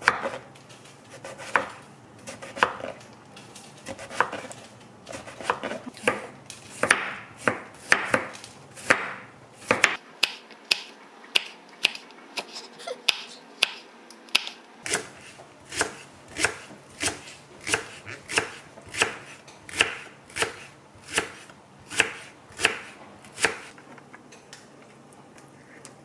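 Chef's knife slicing eggplant and then red chili peppers on a wooden cutting board: a series of sharp knife taps on the board, about one a second at first, quickening to about two a second in the second half and stopping a couple of seconds before the end.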